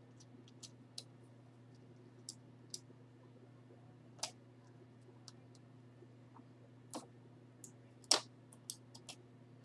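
Scattered light clicks and taps, about a dozen, from a hard plastic card slab being worked at with a small hand tool, the sharpest click about eight seconds in. A low steady hum runs underneath.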